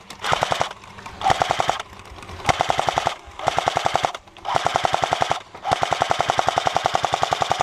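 An airsoft rifle fires on full auto in about six bursts of rapid shots, roughly fifteen a second. The last burst is the longest.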